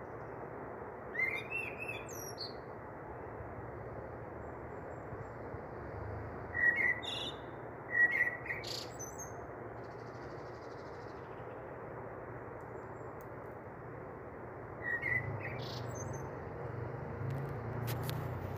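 Small birds chirping in four short groups of quick rising chirps, over a steady hiss.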